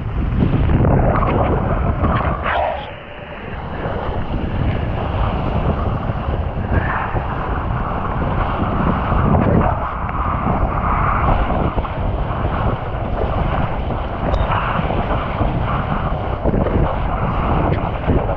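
Wind buffeting the microphone during kiteboarding: a loud, steady rush of noise that swells and eases unevenly, dropping briefly about three seconds in.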